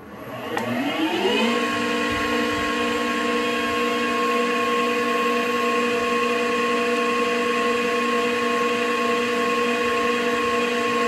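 Victor metal lathe's headstock and inverter-driven three-phase motor starting up and winding up to speed over about a second and a half, then running steadily at about 900 RPM with an even whine of several tones.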